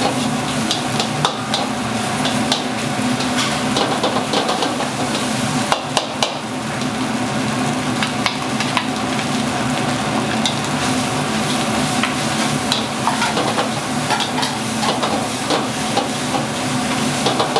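Chicken fried rice frying in a wok: a steady sizzle, with a metal spatula scraping and clacking against the wok many times over a steady low hum.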